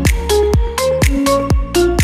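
Electronic background music with a steady beat and a melody of short stepped notes.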